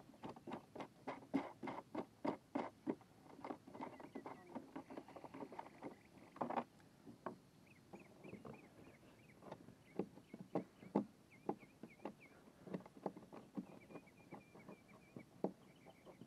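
Irregular light taps and clicks, several a second, with a few faint high chirps in the middle.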